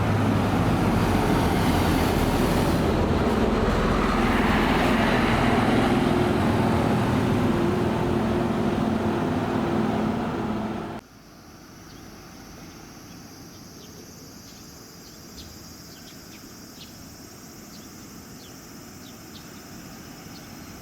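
Diesel bus engine running close by, with a steady hum. About eleven seconds in it cuts off abruptly to a quieter low traffic rumble, with insects chirping in short repeated calls.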